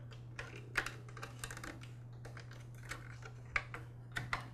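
Light, irregular plastic clicks and taps as a trigger actuator and its spring are pushed into a cordless string trimmer's plastic handle housing, with the loudest click about three and a half seconds in.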